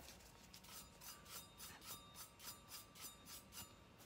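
Bristle paint brush stroked quickly back and forth over an ink-wet stainless steel tumbler: a faint, rhythmic brushing of about three strokes a second that stops near the end.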